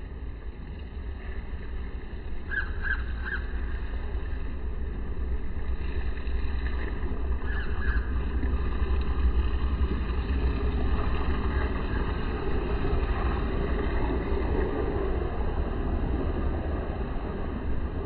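Steady low rumble of outdoor background noise, growing louder about halfway through, with a few faint short chirps: three about two and a half seconds in and two more about eight seconds in.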